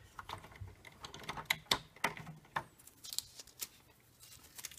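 Scattered light clicks and taps as a cardboard ribbon take-up core and ribbon roll are handled and snapped into the plastic spindle holders of a Zebra GK420T thermal-transfer label printer.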